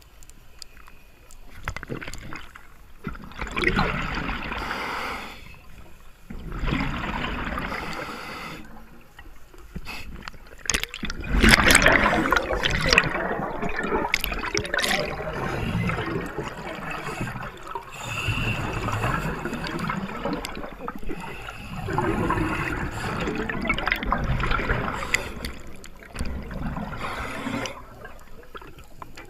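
Underwater bubbling and rushing in bursts every few seconds, the longest and loudest about a third of the way in: a diver's exhaled breath bubbling past the microphone.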